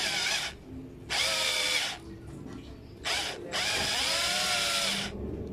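Electric drill with a small bit run in four short bursts, the trigger pulsed on and off, its motor whine rising and falling in pitch within each burst as it bores out material lodged in a part.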